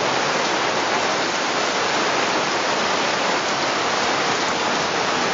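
Heavy rain pouring down, a steady, even hiss of a downpour with no let-up.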